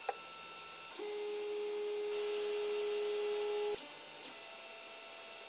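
Creality CR-10S 3D printer's stepper motors whining at one steady pitch for nearly three seconds as they drive the print head across to the next bed-levelling point, over the faint steady hum of the printer's cooling fans. A couple of short clicks come right at the start.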